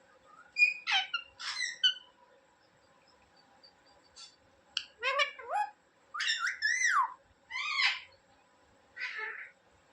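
Indian ringneck parrot calling: about half a dozen short bursts of squawks and whistled, pitch-bending chirps with quiet gaps between them.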